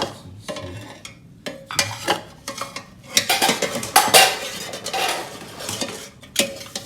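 A metal utensil clinking and scraping around inside a cooking pot as an egg is fished out, in irregular knocks and scrapes that are busiest and loudest around the middle.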